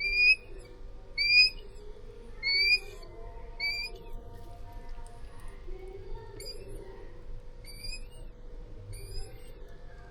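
A Changeable Hawk-Eagle chick calling: short, high, upward-sliding chirps repeated about once a second, the first three loudest and the rest fainter.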